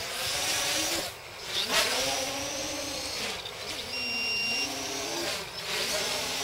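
V-tail quadcopter's brushless motors and propellers whining through flips and rolls, the pitch swooping up and down with the throttle and dropping away briefly about a second in. A short, steady high tone sounds around four seconds in.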